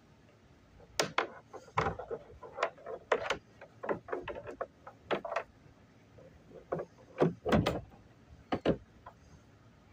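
A run of irregular knocks and clatters of hard objects being handled, starting about a second in and stopping shortly before the end, with the loudest few knocks near the end.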